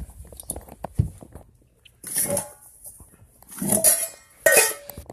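Rustling and shuffling of blankets being moved about on the floor, in several short bursts, with a sharp knock about a second in.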